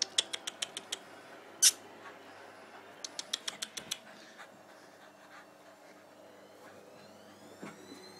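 Jack Russell and Patterdale terriers play-fighting: two quick runs of sharp clicks, about seven or eight a second, with a single louder snap between them. A faint rising whine begins near the end.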